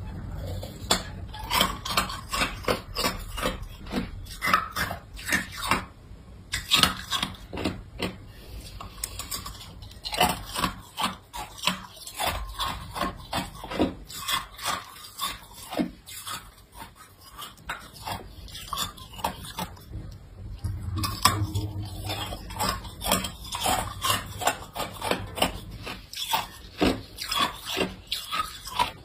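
Hard ice cubes being bitten and chewed: a fast run of sharp crunches and cracks, easing off briefly twice.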